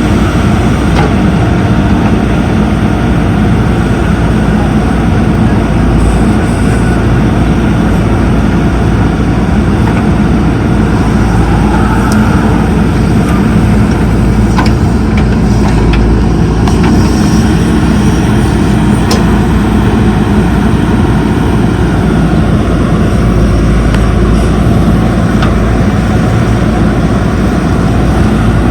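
Heavy diesel machinery running steadily under load, with a few brief sharp knocks over the engine noise.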